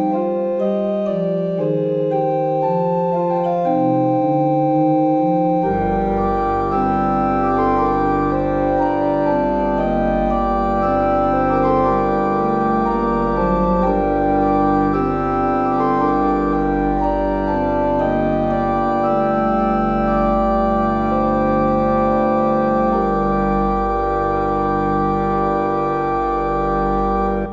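Background music played on an organ-like keyboard, with sustained chords; a deep bass line comes in about six seconds in.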